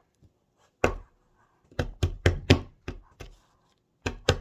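Dig-kit tool striking and chipping a hard plaster excavation block: about nine sharp knocks, with a quick run of them in the middle and two more near the end.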